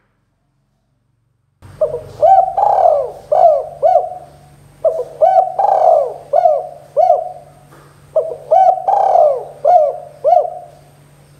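Spotted dove cooing in three repeated phrases of several arching coos each, beginning a couple of seconds in. It is the vigorous cooing call used as a lure (pikat) to draw other spotted doves in.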